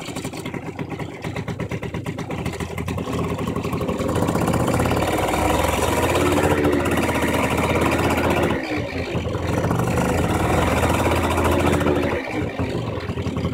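Two-stroke scooter engine with a freshly fitted DR Evo 70 cc cylinder and a Leovince ZX-R exhaust, running on its first start. It runs steadily for a few seconds, then gets louder and is revved up twice, each rev held for about two to three seconds before dropping back.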